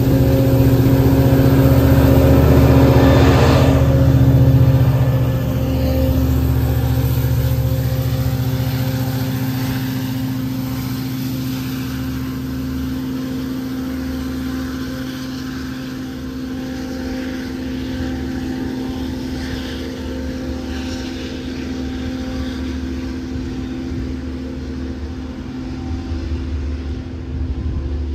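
Long Island Rail Road diesel train pulling out: bilevel coaches roll past close by with heavy wheel-and-rail rumble for the first few seconds. After that the trailing DE30AC diesel locomotive's steady engine drone carries on and slowly fades as the train moves away.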